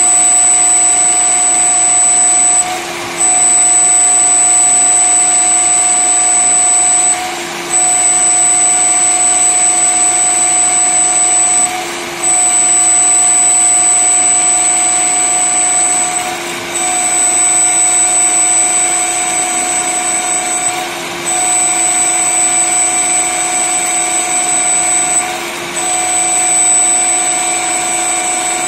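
Small CNC lathe with a turret toolholder running a turning cycle on a metal part: a steady machine whine of several held tones, one very high, that drops out briefly about every four and a half seconds.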